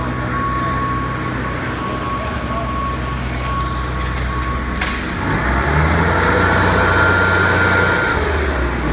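Motor vehicle engine idling with a faint steady whine, then revving up about five seconds in and easing back down near the end.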